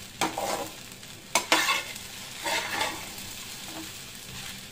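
Metal spatula stirring sabudana khichdi in a non-stick kadhai, in several scraping strokes with a sharp knock on the pan about a second and a half in. A faint sizzle of frying runs under it.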